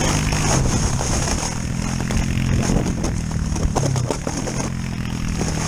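Four-wheeler (ATV) engine running steadily just ahead, with a plastic sled scraping over snow as it is towed behind on a rope.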